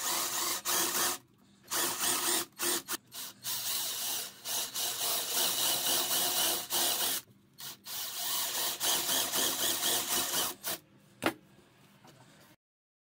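Drill boring into the edge of a hardwood table frame with a spade bit, running in bursts with short pauses between them. A single sharp click comes near the end.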